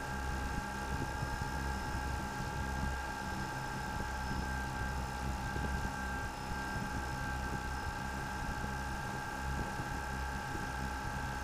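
Camera drone's motors and propellers whining steadily as it hovers, with a gusty low rumble of wind buffeting the microphone.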